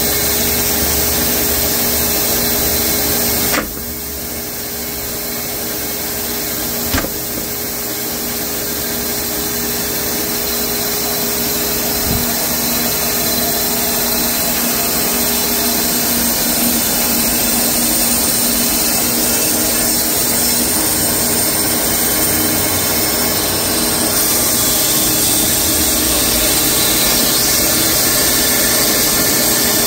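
Wood-Mizer LX250 bandsaw sawmill running, its blade sawing through a large horse chestnut log with a steady hum and hiss. The sound drops suddenly about three and a half seconds in, then slowly builds back up, with a sharp click around seven seconds in.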